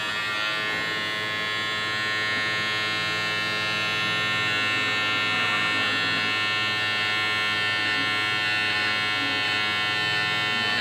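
Kemei KM-6330 battery shaver's motor running with a steady, even buzz, its pop-up long-hair trimmer raised and moved over forearm hair.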